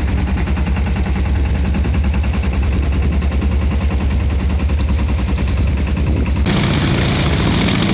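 Small sailing boat's engine running under way, a rapid, regular thudding beat. About six and a half seconds in the sound shifts, with more hiss over the engine.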